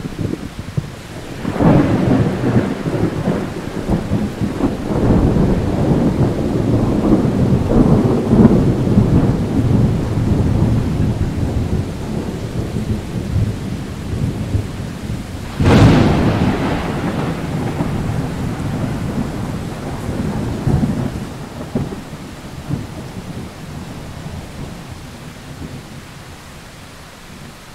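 Thunder over steady rain. A clap about a second and a half in rolls into a long rumble. Just past the middle, a second, sharper crack rumbles on and slowly fades away toward the end.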